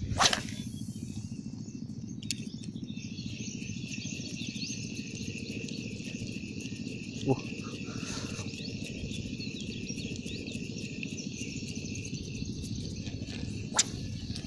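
Steady shrill chorus of insects over a constant low rumble, with a few sharp knocks: one right at the start, one about halfway through and one near the end.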